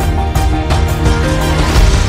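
Background music with a steady beat: sustained tones over a heavy low end and regular drum hits.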